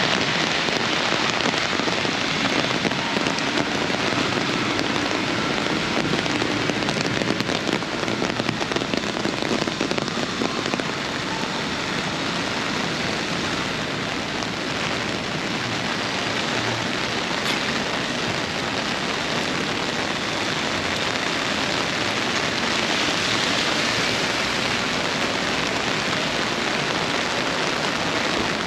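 Heavy rain falling steadily in a downpour, a dense even hiss of rain on the ground.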